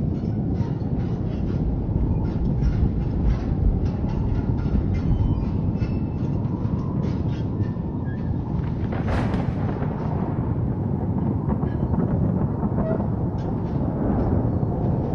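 Dark ambient drone: a dense, steady low rumble of noise with scattered crackling, and one short sharp burst about nine seconds in.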